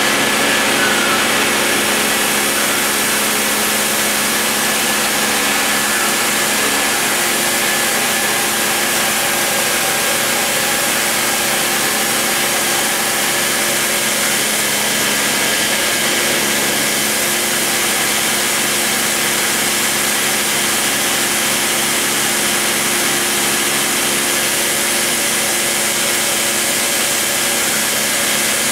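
Dremel rotary tool spinning at high speed with its small bit routing a groove in MDF: a steady whine over a constant hiss of cutting.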